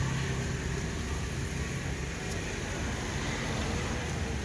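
A vehicle engine running with a steady low hum that fades out about two seconds in, over constant background noise.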